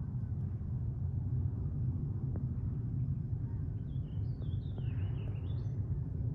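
Steady low outdoor rumble, with a short run of high, quickly changing chirping bird notes from about four seconds in, and a few faint clicks.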